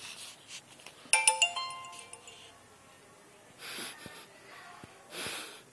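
Mobile phone text-message alert: a bright chime of several ringing notes about a second in, fading out over about a second. Two short hissy noises follow later.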